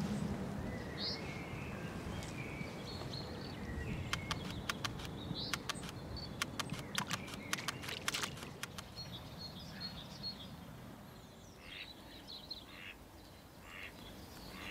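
Outdoor ambience with birds calling in short chirps over a low steady background noise, and a run of sharp clicks through the middle.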